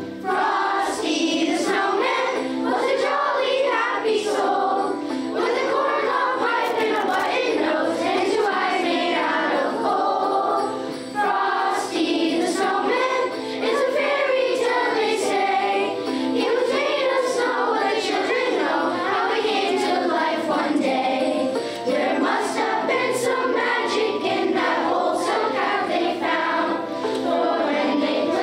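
Children's choir singing a Christmas song together, over a musical accompaniment.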